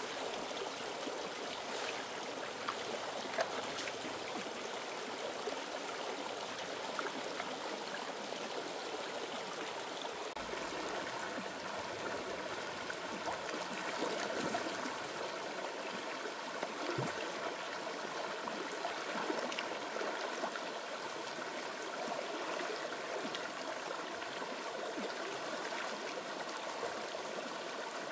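Stream water running steadily, with a few faint clicks.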